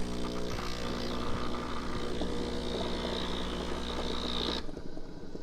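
Breville BES870XL espresso machine running: a steady machine hum with a hiss on top, cutting off suddenly near the end.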